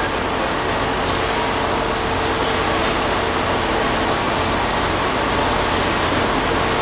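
Steady drone of a running vehicle engine, with a faint constant hum above it and no change in pace.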